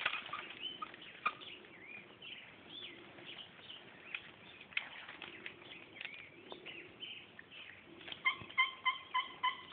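Small birds chirping for most of the stretch. About eight seconds in, a fast, even run of turkey yelps starts, several notes a second, and it becomes the loudest sound.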